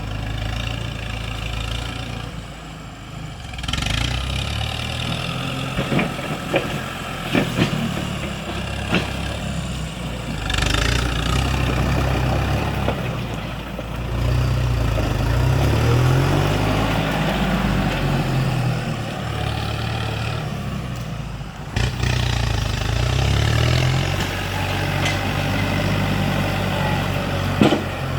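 Kubota MU5702 tractor's diesel engine running under varying load, its speed rising and falling at times, with a few sharp knocks early on.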